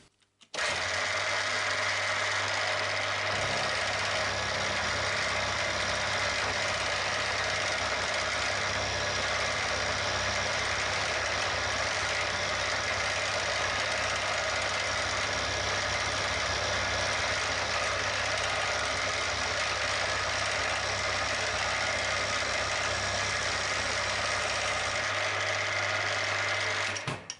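Milling machine with an end mill cutting a clamping flat along a round bar held in a vise: a steady cutting noise over the hum of the spindle motor. It starts about half a second in and stops just before the end.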